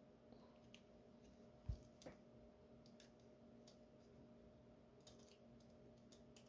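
Faint, scattered small clicks of a tool working at the retaining clip on an Assa 700 lock cylinder, with one soft low thump a little under two seconds in.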